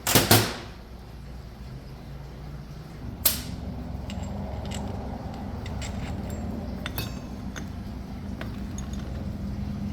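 Metal tools and engine parts clinking and clicking during hand work on a dirt bike's clutch, with two short loud bursts of noise, one at the start and one about three seconds in. A steady low hum starts with the second burst.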